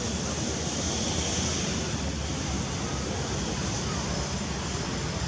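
Steady outdoor background noise: an even hiss with a low rumble under it and no distinct events.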